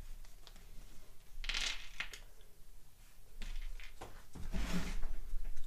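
Rustling and handling noises from nitrile-gloved hands moving small parts: a brief rustle about a second and a half in and a longer one near the end, with a few faint clicks.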